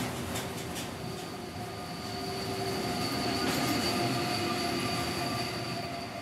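Passenger train with double-deck coaches and an electric locomotive running through a station at speed, close by. A steady rush of wheels and running gear, with quick clicks over rail joints in the first second and a high steady whine throughout. It is loudest about four seconds in, then eases as the train draws away.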